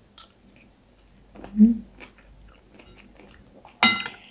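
A person chewing a mouthful of noodle soup, with soft mouth clicks and a brief hum about one and a half seconds in. Near the end, metal cutlery strikes the ceramic bowl with one sharp clink and a short ring.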